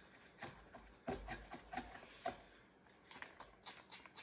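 Faint, irregular scrapes and clicks of a plastic knife scraping and cutting a raw carrot.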